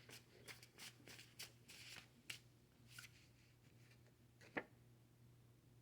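Faint flicks and rustles of tarot cards being handled, several quick ones in the first couple of seconds and a sharper single snap about three-quarters of the way through.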